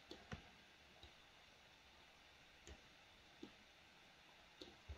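Near silence broken by about half a dozen faint, scattered clicks from a computer mouse and keyboard.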